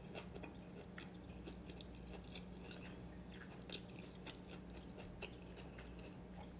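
Faint close-up chewing of food, with many small irregular wet mouth clicks, over a steady low hum.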